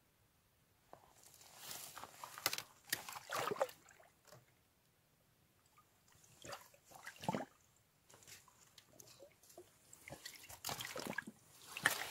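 Water sloshing, splashing and gurgling in irregular bursts as a bottle is dipped into open water and filled, loudest near the end.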